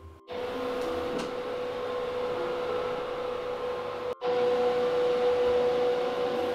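A steady mechanical hum with a hiss, like a small fan or ventilation motor running. It breaks off for an instant about four seconds in, then carries on slightly louder.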